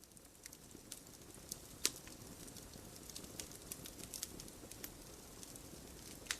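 Wood fire in a fireplace crackling, with irregular sharp pops and snaps over a low steady rumble of flame. The loudest pop comes about two seconds in, and a few strong ones bunch together near the end.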